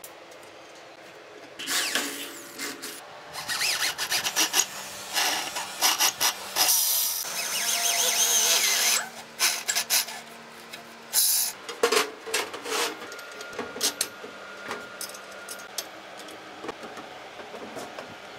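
Electric drill boring through thin-walled steel square tubing: a loud, harsh grinding that runs in spurts for several seconds and stops about nine seconds in. After it come several sharp metal clinks and taps.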